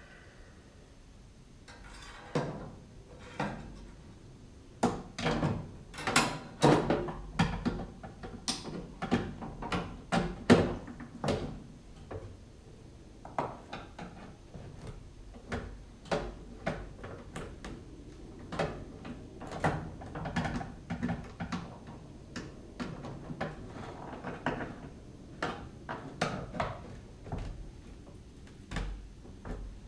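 Hand work with tools and metal parts on a car's heater assembly: irregular knocks, clunks and clicks, some in quick runs, the loudest about ten seconds in.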